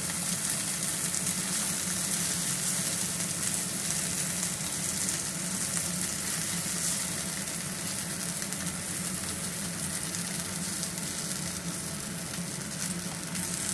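Chicken wings sizzling steadily as they fry in a pan over medium heat, while honey is brushed onto them.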